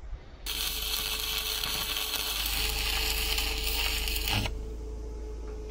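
Electric arc welding on steel: a steady crackle that starts about half a second in and cuts off suddenly after about four seconds, with a low hum underneath.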